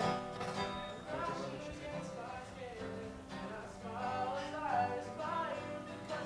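Steel-string acoustic guitar being played solo, chords ringing on.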